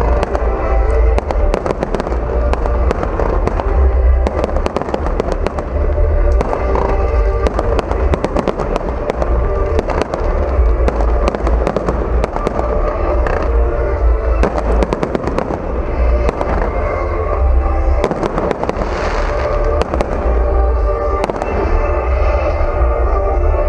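Fireworks display: a dense, continuous run of sharp bangs and crackles over a steady low rumble of booms.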